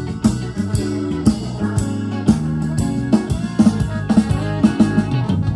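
A band playing: a drum kit keeps a steady beat under sustained bass notes and electric guitar.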